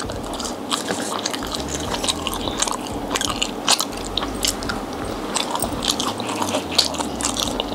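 A person chewing and biting crunchy fried food close to the microphone, with many irregular crunches and clicks.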